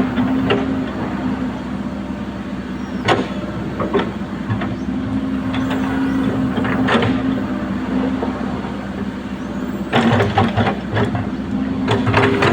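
Komatsu excavator's diesel engine running steadily, with sharp metallic knocks and clanks from the working machine: one about three seconds in, another near seven seconds, and a rapid cluster from about ten seconds on.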